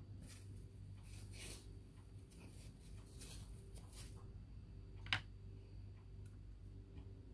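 Faint scraping and swishing of a paintbrush mixing paint during the first four seconds, then one sharp click about five seconds in, over a low steady hum.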